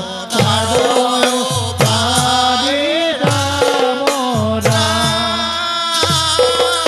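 Assamese nam-prasanga devotional singing: a lead voice with the group singing along, kept in time by brass hand cymbals (taal) and a drum whose low strokes slide down in pitch, about two a second.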